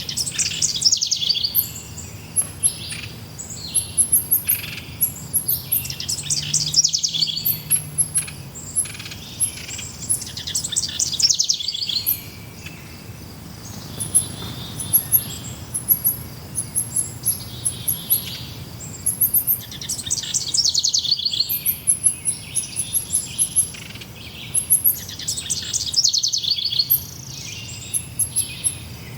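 Forest birds singing: one bird repeats a fast trill that falls in pitch, about every five seconds, over steady thin, very high chirping from other birds.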